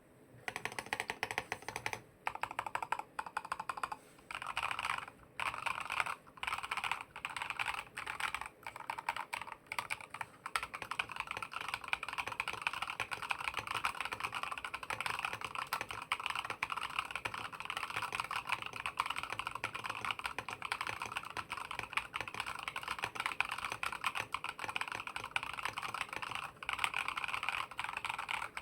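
Typing on an Epomaker SK98 mechanical keyboard fitted with RK Snow King switches and MOA-profile keycaps. Short bursts of keystrokes with brief pauses turn into fast, continuous typing after about ten seconds.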